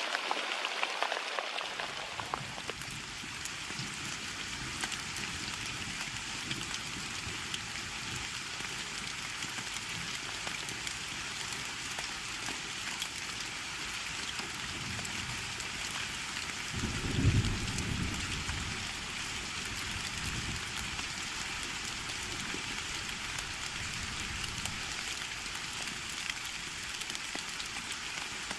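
Heavy rain falling steadily, an even hiss of drops. A brief low rumble, louder than the rain, comes a little past halfway.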